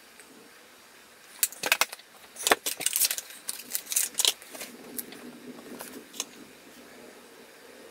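Light clicking and clattering of small hard objects being handled and set down, a run of quick knocks and rattles starting about a second and a half in and trailing off about six seconds in.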